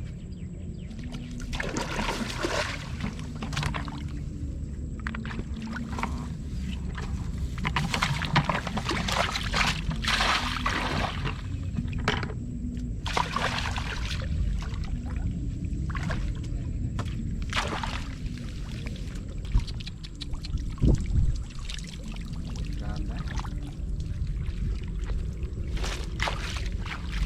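Water splashing and sloshing in repeated short bursts over a steady low rumble.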